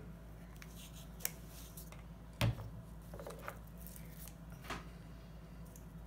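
Light clicks and knocks of plastic and metal parts of a 2007 Saab 9-7x ignition switch being handled and fitted together by hand, with one sharper click about two and a half seconds in.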